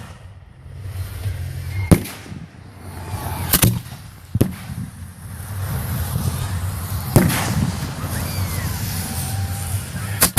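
Aerial firework shells bursting: five sharp bangs spread unevenly, with crackling in between.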